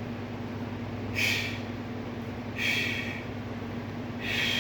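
A man's forceful breaths while straining through deadlift reps under a heavy barbell: three short breaths about a second and a half apart.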